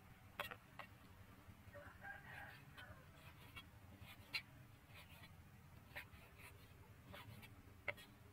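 Large kitchen knife chopping raw pork on a thick wooden chopping board: single sharp chops at irregular intervals, about half a dozen. A brief animal call sounds about two seconds in.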